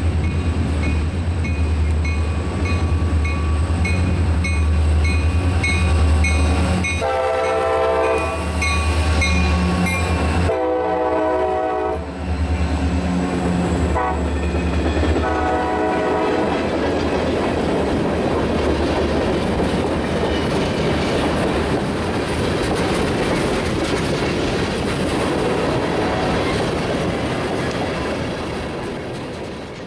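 Freight locomotives, an EMD SD45-2 leading an SD40-2, rumble past under power. The air horn sounds two long blasts, a short and a long: the standard grade-crossing signal. The long train of tank cars then rolls by with steady wheel clatter that fades toward the end.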